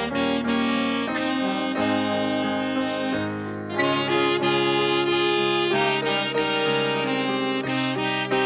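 Student orchestra playing held chords over a low bass line, the harmony changing every second or so.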